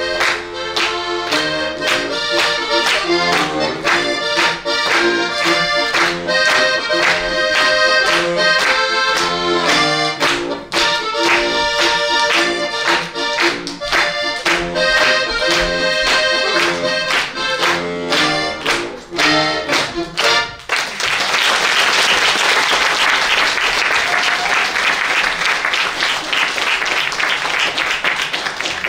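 Accordion playing a tune of quick notes over a steady pulsing bass. The music stops abruptly about two-thirds of the way through and an audience applauds.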